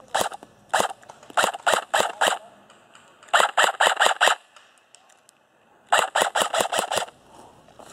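Airsoft rifle shots: a few single shots, then two quick strings of about five and seven shots with a short lull between them.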